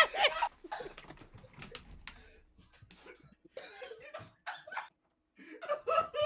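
Faint, scattered clicking of a computer keyboard, with brief bursts of voices near the end.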